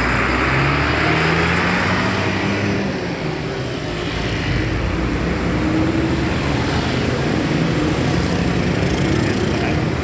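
Bus diesel engine running steadily with a low rumble, amid the general noise of a bus terminal.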